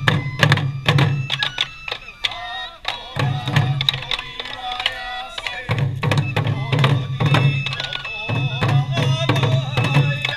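Sansa dance festival music: rapid drum beats under a high, stepped flute melody.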